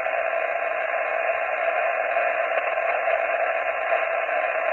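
Amateur radio transceiver's receiver hiss: steady band noise from its speaker, held to a narrow voice band, with no station coming through on the frequency between contacts.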